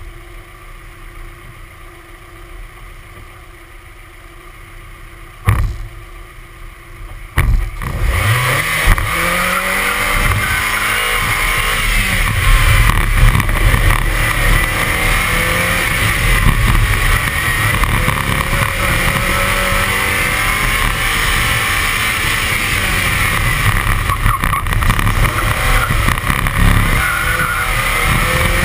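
1999 Mazda Miata's 1.8-litre four-cylinder engine idling quietly at the start line, with two sharp knocks, then about eight seconds in the car launches and the engine revs hard, rising and falling in pitch through the gears and corners of an autocross run.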